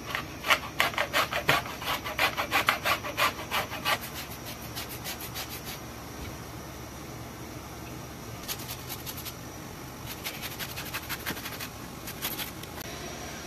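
Orange peel being grated on a small flat metal hand grater: rapid rasping strokes, about four a second, in two runs with a pause of a few seconds between.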